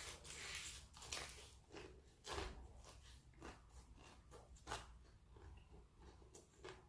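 Biting into and chewing crispy fried chicken: a run of short, irregular crunches.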